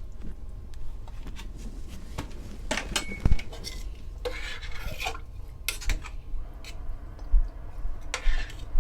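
A spoon clinking and scraping against a cooking pot while stirring in added salt, with a louder knock a little over three seconds in.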